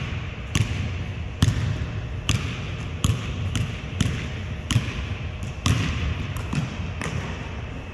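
A basketball being dribbled on a hardwood gym floor: steady single bounces, a little more than one a second.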